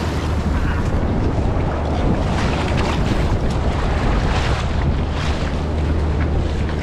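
Wind noise rumbling on the microphone over sea water sloshing and splashing around a kayak riding ocean swells, with repeated splashes from paddle strokes.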